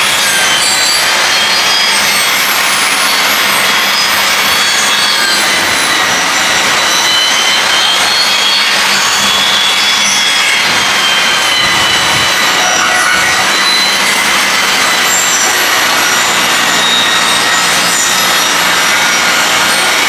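Table saw running loud and steady, its blade ripping along the edge of a board to straighten it, with a wavering high whine from the cut.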